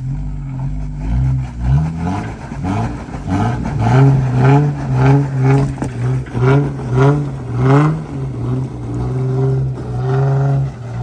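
Jeep engine revving in a quick run of rises and falls, about two a second, as it works to crawl up a rock ledge, then holding steadier near the end. The climb attempt falls just short.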